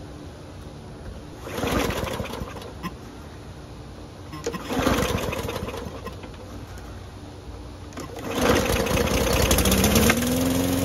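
Murray push mower's Briggs & Stratton engine being pull-started: two short spells of noise about 1.5 and 4.5 seconds in, then from about eight seconds in it catches and runs briefly with the air filter off, rising in pitch near the end.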